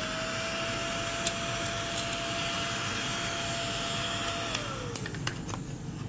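Mini battery-powered desktop vacuum cleaner (LotCow table dust sweeper) running, a steady high whine over the rush of air, with a few sharp clicks. Its motor winds down, falling in pitch, after about four and a half seconds.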